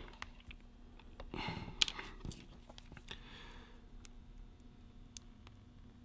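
Faint, scattered small clicks of fingers handling a tiny radio receiver and pressing a U.FL antenna connector onto it, with a soft breath about a second and a half in.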